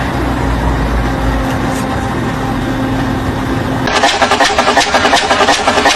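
A machine engine running steadily; about four seconds in, the sound cuts abruptly to a louder machine with a fast, even pulsing of about five beats a second.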